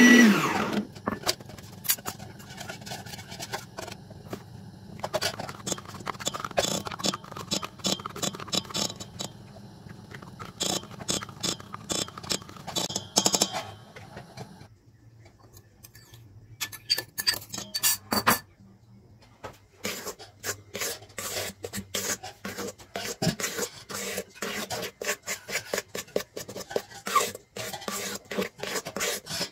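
Electric stand mixer cutting off at the start. After that come scattered clinks, taps and scraping of utensils against a stainless steel mixing bowl while the cream is worked by hand.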